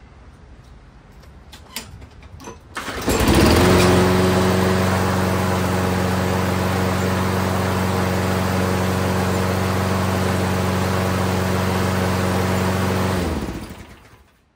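Toro Recycler self-propelled lawn mower's small four-stroke engine starting after a couple of faint clicks, catching about three seconds in with a short rise in pitch. It then runs at a steady speed for about ten seconds before it is shut off and winds down near the end.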